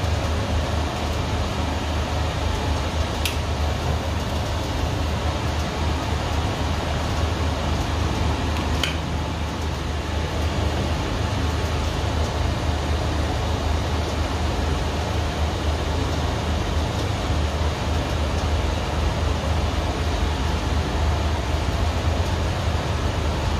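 Steak sizzling steadily in a hot pan over a low steady hum, with two short clicks about three and nine seconds in.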